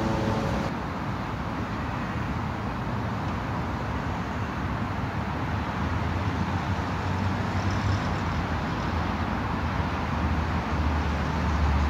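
Steady street traffic noise from passing cars, with a low rumble growing louder near the end. An acoustic guitar piece cuts off within the first second.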